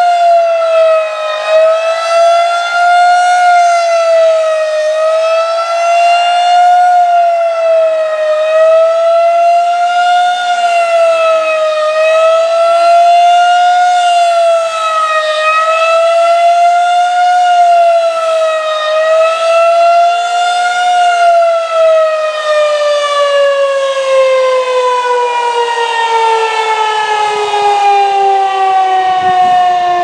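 Federal Signal 2001-SRNB rotating electromechanical siren sounding a fast wail, its pitch rising and falling about every three and a half seconds. A little over twenty seconds in it stops cycling and winds down, the pitch falling steadily.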